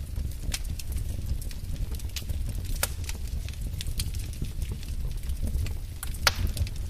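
Wood fire in a fireplace crackling: irregular sharp pops and snaps over a steady low rumble, with two louder pops, one near the middle and one near the end.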